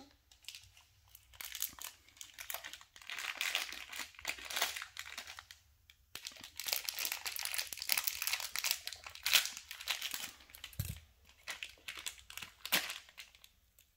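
Plastic toy-accessory packets crinkling and rustling as they are handled and torn open, in irregular crackly bursts with a short lull about six seconds in.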